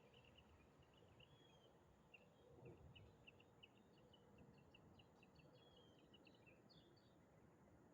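Faint outdoor quiet with small birds chirping: many short, high chirps in quick runs, over a low background hiss.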